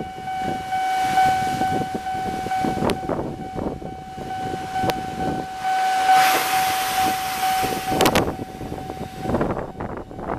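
Japanese railway level-crossing alarm ringing its repeated electronic bell as an Eizan Electric Railway train runs over the crossing; the alarm stops about nine seconds in.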